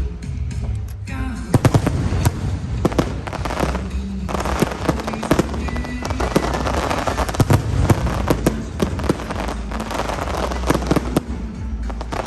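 Fireworks going off in rapid succession: many sharp bangs over a dense crackle, with music playing underneath.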